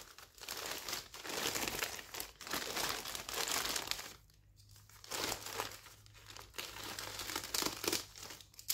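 A parcel's packaging being torn open and crumpled by hand, in two spells with a short pause about four seconds in.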